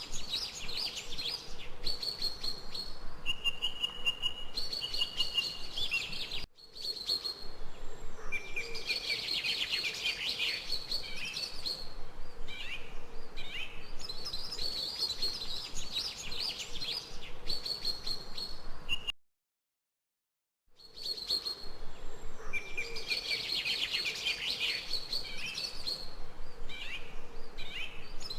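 Songbirds chirping and twittering continuously in short, high calls and trills, over a faint steady background hiss. A little past the middle the sound cuts out completely for about a second and a half, then the birdsong resumes.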